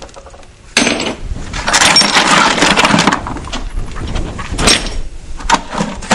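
Pieces of flint clattering, knocking and scraping against one another as they are stacked by hand into a kiln for heat treating, starting about a second in.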